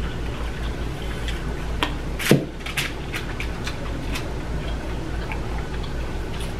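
Scattered small clicks and wet handling sounds of a seafood boil being eaten at the table: shrimp shells peeled and food picked over, with one sharper click about two seconds in, over a steady low hum.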